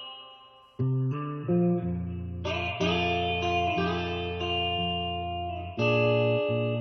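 Background music: a guitar plays plucked chords and lets each one ring, with a new chord every second or two and no singing.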